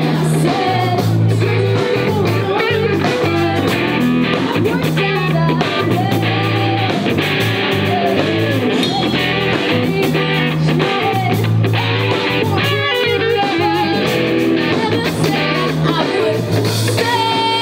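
Live band playing: electric guitar and drum kit, with a voice singing at times.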